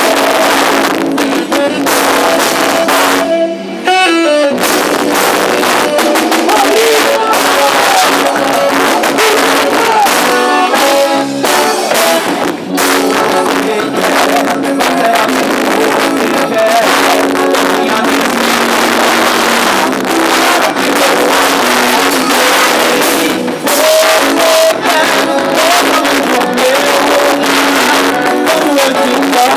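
Loud music with closely packed percussive strokes under melody lines, briefly thinning out about four seconds in.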